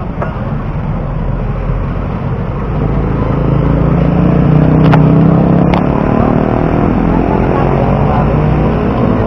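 Street traffic: a motor vehicle's engine passes close by, its note swelling to a peak about five seconds in over a steady low rumble, with two sharp clicks near the peak.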